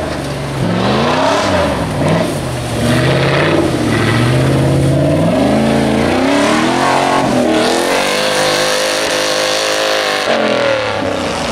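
Off-road race rig's engine revving hard while its tyres churn through deep snow. The pitch climbs and falls repeatedly as the throttle is worked, then holds at high revs for a couple of seconds and drops near the end.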